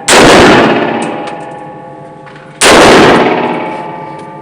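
Two single gunshots about two and a half seconds apart. Each is followed by a long ringing decay.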